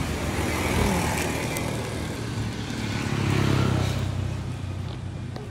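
A motor vehicle's engine running nearby, a low hum that grows louder about three seconds in and then fades.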